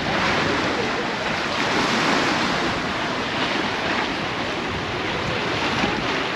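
Steady wind with rough, choppy water washing against the bank, the gusts buffeting the microphone.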